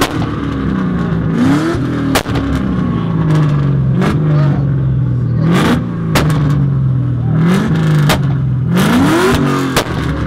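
A car engine revved over and over: each rev climbs quickly in pitch and then falls away slowly, about five times. Sharp pops cut in between the revs.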